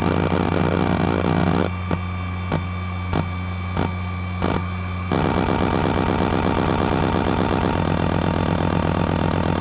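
ExcelStor CT210 10.2GB hard drive (a rebadged Conner design) spinning with a steady hum and a high whine while its head actuator seeks under the hdmotion test. For about the first second and a half there is continuous sweeping seek noise, then single seek clicks about every two-thirds of a second, then dense, rapid seek chatter from about five seconds in.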